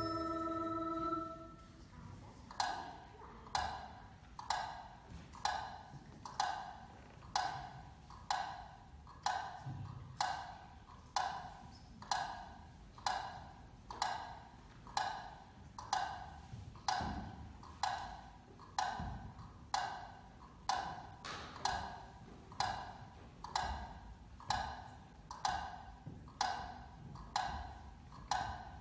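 Slow, steady clock ticking from the show's soundtrack, a woodblock-like knock just under once a second, each with a short ringing tail. A held musical chord dies away just before the ticking starts.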